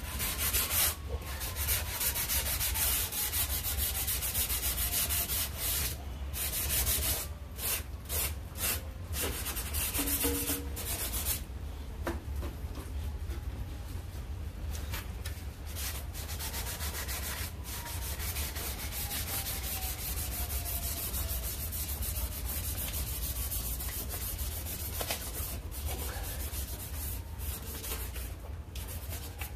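Sandpaper rubbed back and forth by hand over the cut edge of a C5 Corvette's composite body panel, a rapid scraping with a few brief pauses.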